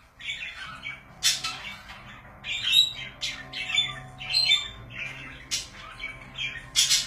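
Pet budgerigars chattering and squawking: a dense run of short, harsh, high-pitched calls, one after another.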